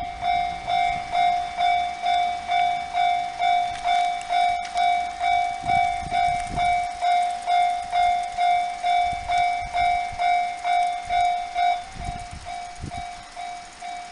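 Japanese railway level-crossing warning bell ringing in an even, repeating pattern of a bit more than two strokes a second. It drops to a lower volume about twelve seconds in and keeps ringing. A few low rumbles sound under it.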